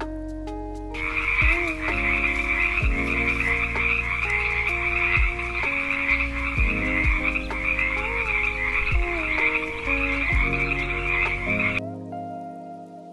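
Frogs croaking in a dense, continuous chorus that starts about a second in and cuts off suddenly near the end, over gentle background music.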